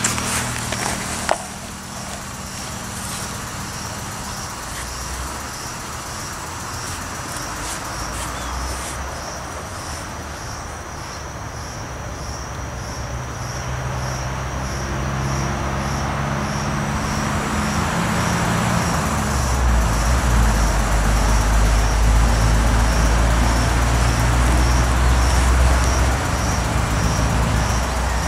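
A motor vehicle's engine running, a low steady drone that grows louder over the second half. A faint high chirp repeats about once a second.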